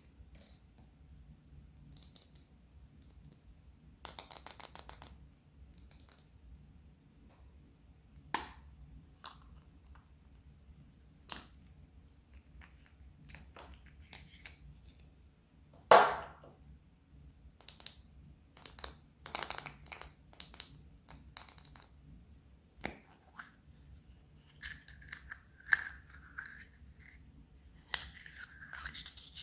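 Hands opening surprise eggs and toy packaging: scattered plastic clicks and snaps, a short fast rattle about four seconds in, and one loud snap about halfway.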